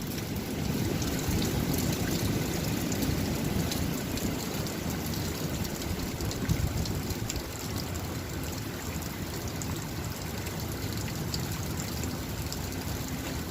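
Steady rain falling, with many fine drop ticks over a low, even rush.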